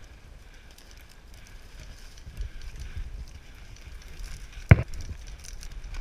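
Footsteps and rustling of a player moving over rough ground, with scattered light crackles, then a single sharp knock nearly five seconds in.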